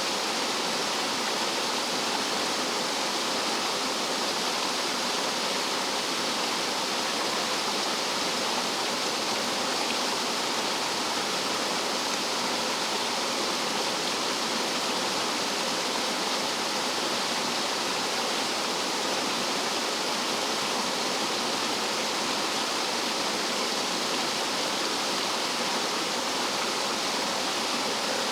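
Rough mountain stream water tumbling over rocks like a small waterfall: a steady, unbroken rushing that does not change.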